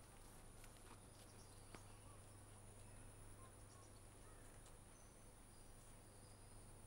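Near silence: faint outdoor ambience with a steady high-pitched drone of insects, over a low steady hum. A couple of faint ticks come in the first two seconds.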